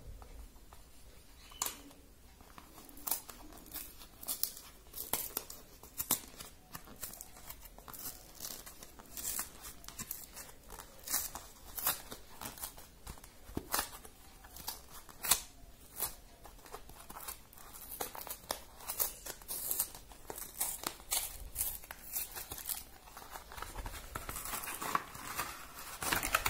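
A paper and card photo mailer being torn open by hand: many short, irregular rips and crinkles of paper, with a denser run of crinkling near the end.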